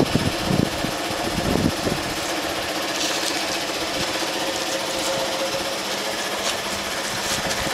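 Air compressor running steadily with a constant machine hum, building its air reserve back up.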